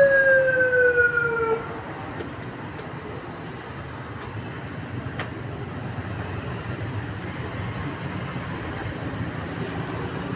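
A loud siren-like tone that slides slowly down in pitch and stops about one and a half seconds in, followed by steady low background noise.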